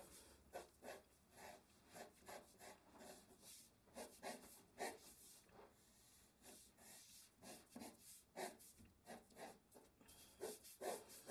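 Pencil sketching on drawing paper: faint, short scratchy strokes in quick, irregular succession.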